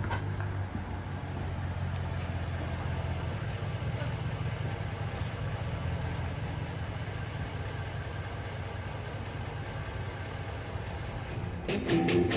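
Rebuilt Hemi V8 engine of a Ram pickup running steadily with an even low hum. Music comes in near the end.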